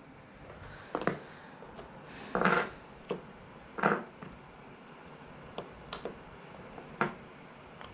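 Scattered short clicks and knocks, about eight in all, with a brief rustle or scrape about two and a half seconds in: objects being handled in a small room.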